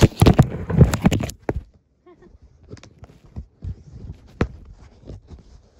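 A quick run of loud knocks and taps, then scattered fainter clicks: items being handled as they come out of a box.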